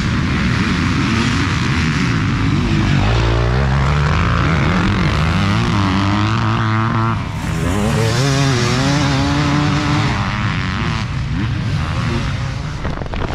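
A pack of off-road dirt bikes accelerating hard off a race start, then single bikes passing close at full throttle, their engine pitch rising and falling as they run up through the gears.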